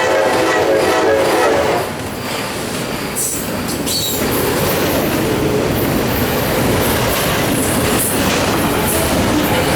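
CSX locomotive air horn sounding a chord that cuts off about two seconds in, then the steady rumble and rattle of a passing train's wheels on the rails, with faint wheel squeals.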